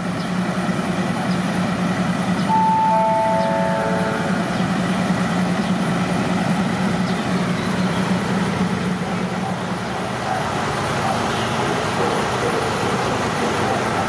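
Diesel train idling at a station platform, a steady engine hum, with a descending four-note chime about two and a half seconds in.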